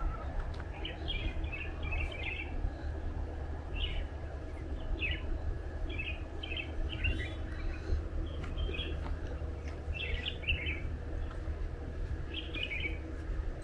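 Small birds chirping in short, quick phrases, repeated every second or two, over a steady low rumble.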